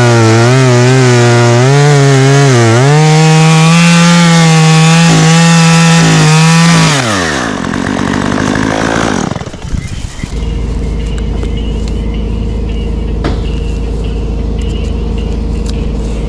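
Chainsaw at full throttle cutting into oak, its pitch dipping repeatedly as it loads in the cut. About seven seconds in it winds down over a couple of seconds, leaving a steady, quieter low engine hum.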